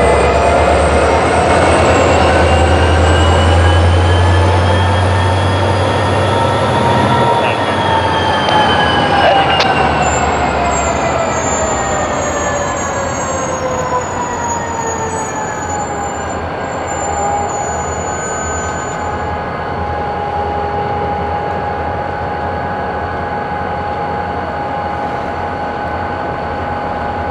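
Steel wheels of rolling freight cars squealing during car sorting: several shrill tones climb in pitch for the first seven seconds or so, then slide down and settle into one steady squeal. A low rumble of the moving cars fades after about eight seconds.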